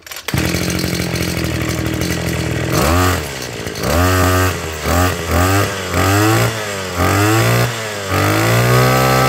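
Robin NB262 brush cutter's 26 cc two-stroke engine catches on a single pull of the recoil starter and idles steadily. About three seconds in, it is revved up and down in about six quick blips.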